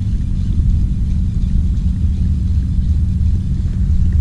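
Wind buffeting the camera's microphone: a steady, uneven low rumble.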